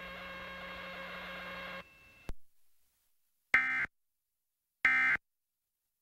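Emergency Alert System end-of-message signal: two short, identical bursts of digital data tones about 1.3 s apart, ending the National Periodic Test broadcast. Before them, a steady low hum cuts off with a click about two seconds in.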